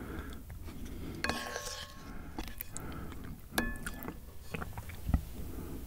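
Eating ramyeon and kimchi: a spoon and chopsticks knocking against the bowl, with two ringing clinks about a second and a half and three and a half seconds in, amid small chewing and mouth sounds.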